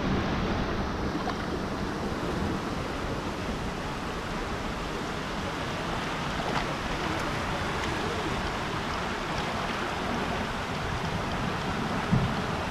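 Churning, rushing water of a water-park rapids channel heard from an inner tube riding it, a steady splashing wash. A brief loud splash or knock about twelve seconds in.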